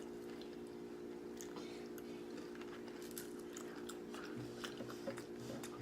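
Tortilla-chip nachos (Nacho Cheese Doritos) being bitten and chewed, with scattered crisp crunches, over a steady low hum.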